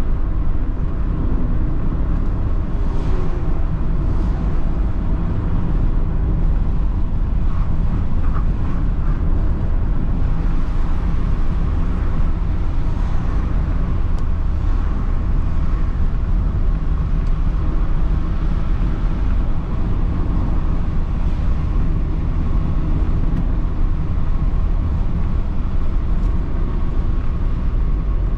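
Mazda ND Roadster driving along: a steady, low engine drone mixed with tyre and road noise.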